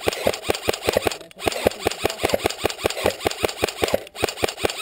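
Airsoft electric gun firing long full-auto bursts at about ten shots a second, with short breaks where the trigger is released about a second in and near the end.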